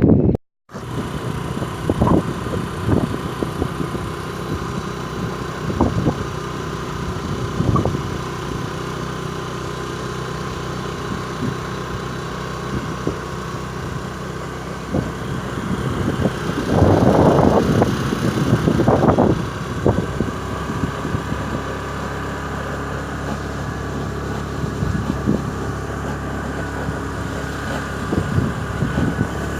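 A vehicle engine running steadily, with a few sharp knocks and a louder stretch about seventeen seconds in. The sound cuts out briefly just after the start.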